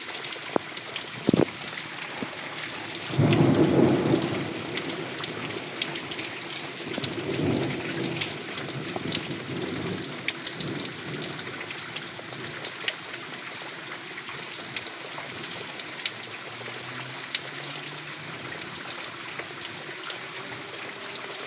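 Heavy rain falling steadily on a yard and puddles, with many sharp taps of close drops. A roll of thunder rumbles in about three seconds in as the loudest sound, with a weaker rumble a few seconds later.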